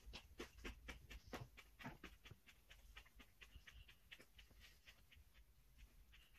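Faint, wet mouth clicks of a person chewing a fresh Carolina Reaper chili, quick and irregular, thinning out after about three seconds.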